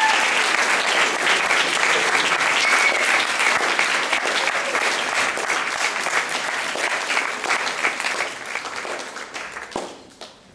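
Audience applauding with dense clapping that thins out and dies away near the end.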